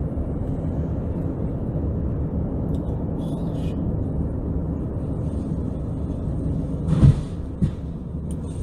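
Steady road and engine rumble of a car driving on a highway, heard from inside the cabin. About seven seconds in a vehicle ahead crashes with a loud bang, and a smaller knock follows shortly after.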